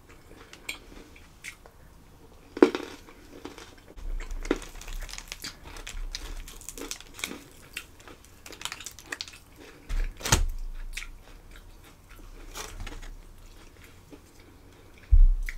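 Close-miked eating: a person biting, chewing and crunching food, with many small wet clicks and crackles. Louder crunches come about two and a half and ten seconds in, and a thump near the end.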